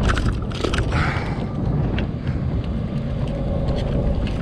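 Jet ski engine running at idle under a steady low rumble of wash against the hull, with scattered clicks and knocks from fishing tackle being handled.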